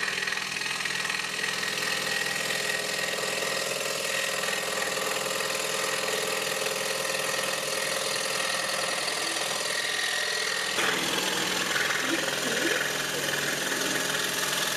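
Scroll saw running steadily as its blade cuts through a hard maple spoon blank; the tone shifts a little under 11 seconds in.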